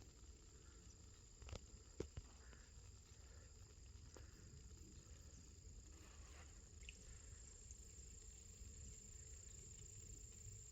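Near silence of outdoor woodland ambience: a faint steady high-pitched tone with a few soft clicks, the sharpest about two seconds in.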